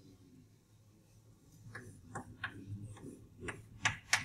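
Chalk tapping and scratching on a blackboard as a formula is written: near-quiet for the first second and a half, then a run of about six short, sharp taps, the loudest near the end.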